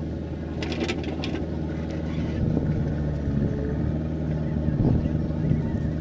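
Diesel engines of a JCB backhoe loader and a Swaraj tractor running steadily while the backhoe works its arm. The engine note swells and briefly rises about five seconds in, with a few clicks about a second in.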